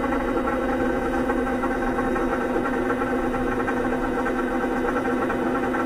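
Electric vibration-therapy machine running under a person's back, shaking their upper body: a steady, even motor hum.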